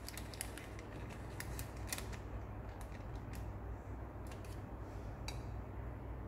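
Palette knife scraping soft paraffin off wax paper and clicking against a white tile: a scatter of light scrapes and clicks over a low steady hum.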